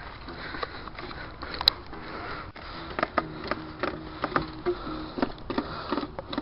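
An acoustic guitar being strummed, coming in about halfway through as a run of short plucked notes and strums over the rustle of a handheld camera moving.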